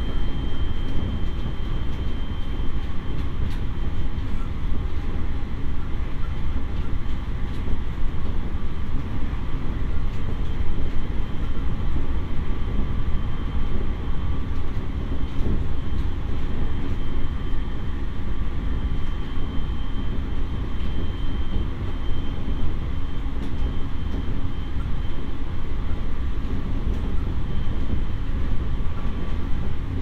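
E501 series electric train running, heard inside motor car MoHa E501-2: a steady low rumble of wheels and running gear on the rails. A faint high whine fades in and out over it.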